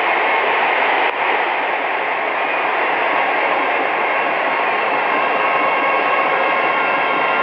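Cricket stadium crowd cheering steadily, with a brief dip about a second in.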